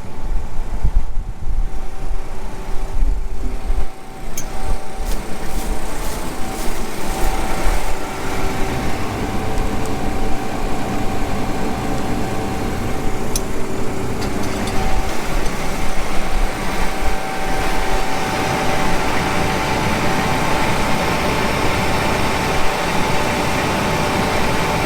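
John Deere T670i combine harvester running, uneven at first and then steady from about two-thirds of the way in. The loud bee-like buzzing from the side of the machine, which the owner took for a sticking hydraulic valve, is not heard now.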